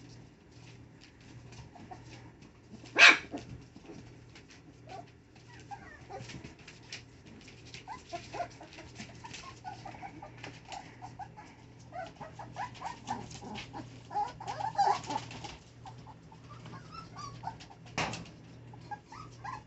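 Corgi puppies whimpering and squeaking in short, high cries that come thickest around fifteen seconds in, with small scratchy clicks of paws on newspaper. One sharp, loud sound stands out about three seconds in.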